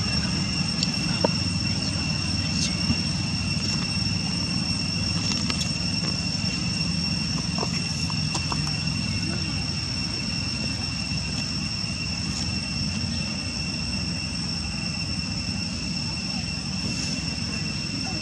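A steady, high insect drone, two thin unchanging tones, over a low outdoor rumble, with a few faint clicks scattered through.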